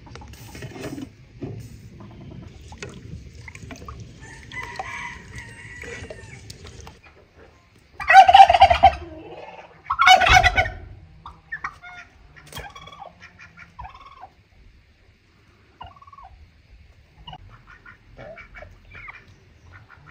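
Domestic turkey gobbling twice, two loud calls about two seconds apart, followed by softer scattered clucking of chickens.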